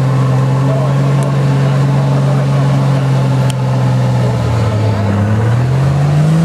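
Nissan Patrol GR 4x4's engine working under load as it crawls up a deep mud rut, holding steady revs, then dropping about four seconds in before revving up again near the end.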